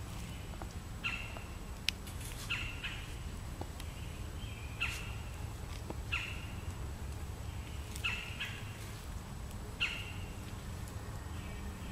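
Short, high chirping animal calls, each sliding down in pitch, repeated every second or two over a low steady hum, with one sharp click about two seconds in.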